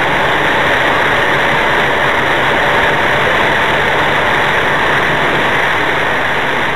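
Steady vehicle noise heard from inside a car: an even rushing noise with a low steady hum beneath it, unchanging throughout.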